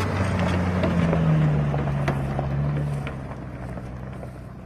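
Off-road vehicle engine pulling under load as it drives past. It grows louder in the first second or two, then fades as it moves away.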